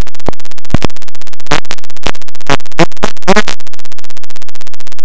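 A short audio snippet looped many times a second into a harsh, stuttering buzz, clipped at full volume, with a few brighter sweeps in the middle. It cuts in and out abruptly.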